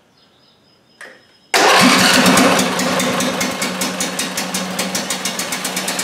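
Briggs & Stratton 20 HP twin-cylinder engine starting suddenly about a second and a half in and running with a rapid, pulsing exhaust beat. It is firing on one cylinder only, because the other cylinder has no pushrods.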